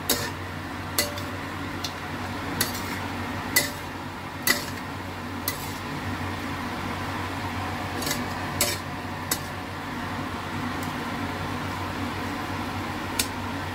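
Metal spatula stirring pork in a wok, scraping and clinking against the pan in irregular knocks, most of them in the first two-thirds, over a steady frying sizzle.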